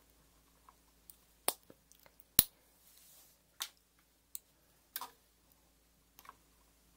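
About six sharp clicks and taps at uneven intervals, the loudest a little over two seconds in, from pliers and a small wire connector being handled.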